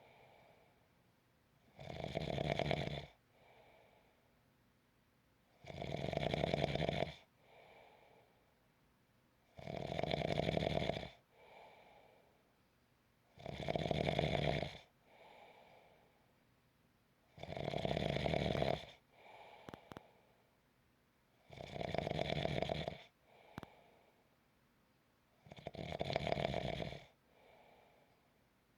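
A person snoring in a slow, regular rhythm: seven loud snores about four seconds apart, each followed by a short, softer breath.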